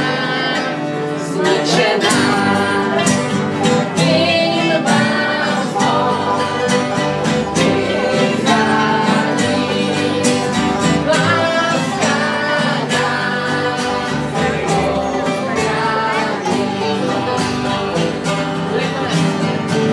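Acoustic guitars and an upright double bass playing a country song at an informal jam, with a voice singing along.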